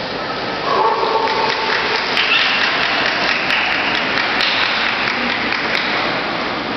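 Spectators applauding, steady clapping that grows louder about two seconds in.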